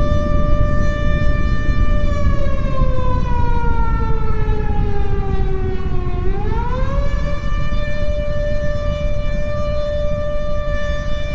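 Air-raid siren sounding one steady wail. About two seconds in it slides slowly down in pitch, then about six seconds in it swings quickly back up and holds again. A loud, constant low rumble lies underneath.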